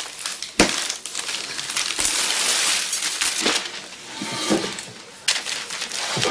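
Large sheets of paper rustling and crinkling as they are spread and pulled around a ceramic toilet bowl on a counter, with a few sharp knocks.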